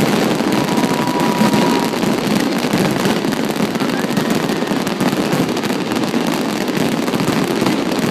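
Aerial fireworks in a dense barrage: many shells bursting close together, running into one continuous crackle and rumble with no pauses between blasts.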